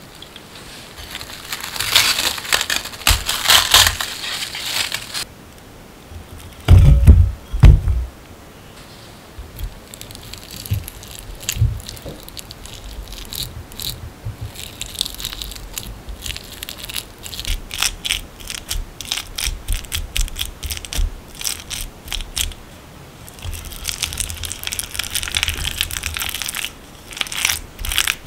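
Plastic cling wrap crinkling as it is peeled off a glass bowl, a heavy thump about seven seconds in, then steamed kabocha squash being crushed against the glass bowl with a utensil, in many short clicks and scrapes.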